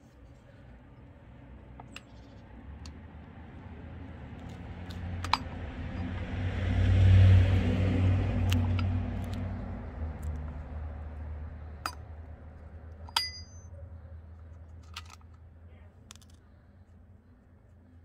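Metal combination wrench clicking and clinking against the bar nuts on a Defender chainsaw's side cover, a handful of separate sharp clicks with one brief ringing clink a little after the middle. Under them a low rumble swells over several seconds and fades again, loudest about a third of the way in.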